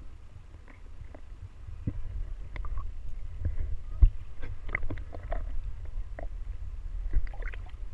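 Shallow sea water sloshing and lapping around a GoPro held at the surface: a steady low rumble with scattered small splashes and knocks, the sharpest knock about four seconds in.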